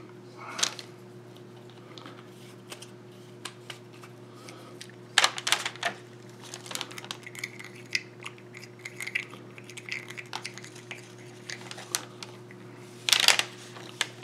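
Light clicks and taps of a paintbrush stirring a clay-based wash in a small plastic mixing cup. There are two louder clusters of clatter, about five seconds in and near the end, over a steady low hum.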